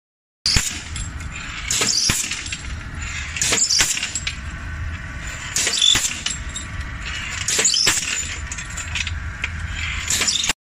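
A fire sprinkler deflector-mounting press cycling. About every two seconds, often twice in quick succession, there is a sharp metal strike with a brief hiss as a deflector is pressed onto a brass sprinkler frame. Under the strikes run a steady low machine hum and light clinks of metal parts.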